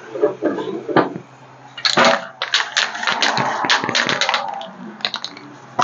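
Hard objects being handled: a rapid, irregular run of sharp metallic clicks and clatter for about two and a half seconds, with a few single clicks before and after.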